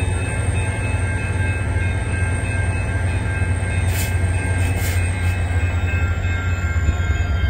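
Railway level-crossing warning bells ringing in a steady repeating pattern as the crossing lights flash and the gate arms come down, over a steady low rumble.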